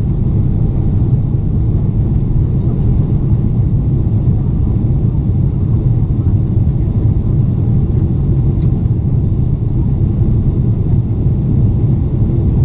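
Steady low rumble of cabin noise aboard a Boeing 777-300ER in flight: engine and airflow noise heard from inside the passenger cabin.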